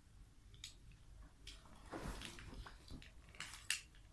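Faint clicks and rustling of a tape measure being handled and worked on by hand, with a sharper click about three and a half seconds in.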